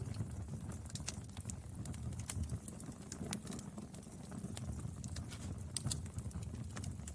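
Wood fire burning, with irregular sharp crackles and pops over a low steady rumble of the flames.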